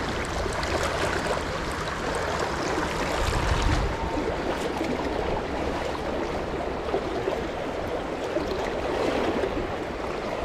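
Shallow river running over rocks: a steady rush of flowing water. A low rumble swells briefly about three and a half seconds in.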